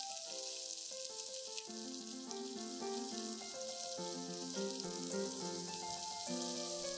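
Food sizzling steadily in a frying pan, under background music.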